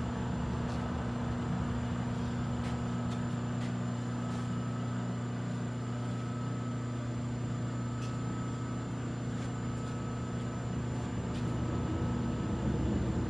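Rotary phase converter running steadily, a constant electric-motor hum, with a few faint clicks over it.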